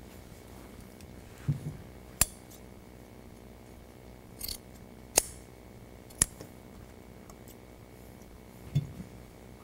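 Upholstery scissors cutting jute carpet padding: three sharp metallic clicks of the blades, with a brief rustle of the fibre pad and a couple of soft low thuds as it is handled.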